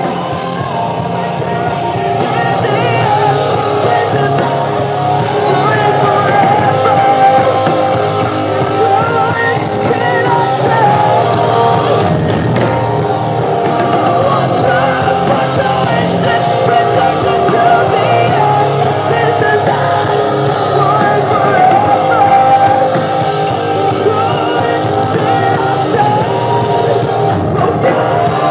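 Metalcore band playing live: distorted guitars, bass and drums, with a vocalist singing over them, without a break.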